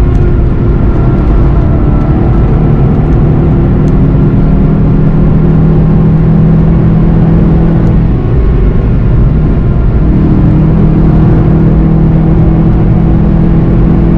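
Onboard sound of a VW Golf GTI TCR's turbocharged 2.0-litre four-cylinder holding steady revs at about 165 km/h, easing briefly about eight seconds in, over a steady rush of wind and road noise.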